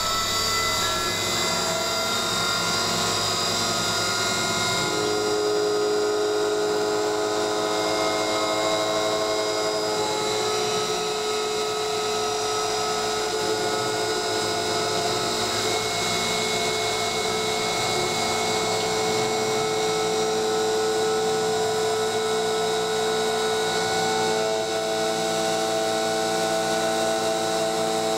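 CNC mill's brushless DC spindle motor running under load while the cutter machines 6061 aluminium, a steady whine of several held tones over a spray-like hiss. A new tone joins about five seconds in.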